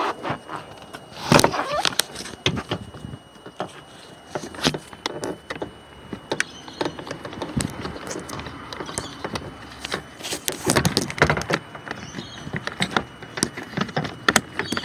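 Clicks, knocks and rattles of plastic and metal parts inside a car door as the door handle's cable is reconnected. The loudest knocks come about a second and a half in and again around ten to eleven seconds in.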